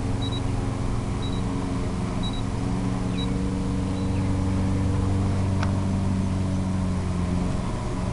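A steady low engine-like hum, with short high beeps about once a second during the first four seconds.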